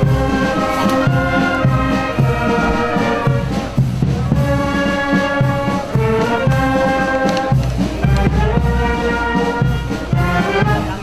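Brass marching band playing a march: a sustained brass melody in phrases over a steady low beat, with short breaks between phrases about four and seven and a half seconds in.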